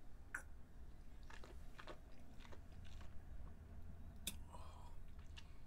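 Faint mouth sounds of a person sipping a small drink of liqueur from a glass and tasting it: soft sipping, swallowing and scattered small clicks, with one sharper click about four seconds in.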